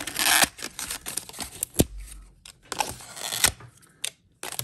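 A blind-box toy package, a paper-wrapped cardboard box holding a plastic capsule, being torn open and handled: a burst of tearing and rustling at the start, more scattered rustling, and two sharp clicks, a little under two seconds in and again near the end.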